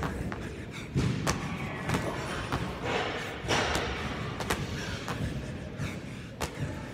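Thuds of burpees over a dumbbell: hands and feet hitting the gym floor as the athlete drops, jumps and lands, several separate impacts a second or more apart.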